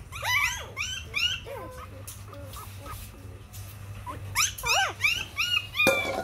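Very young puppies whimpering: a quick run of thin, high cries that rise and fall in pitch, then a second run near the end. A brief rustling noise comes just before it ends.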